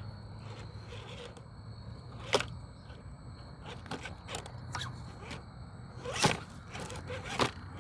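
RC4WD TF2 scale crawler driving over rough ground: its tires and chassis scrape and knock in a string of sharp clicks, three of them louder, over a low steady motor hum.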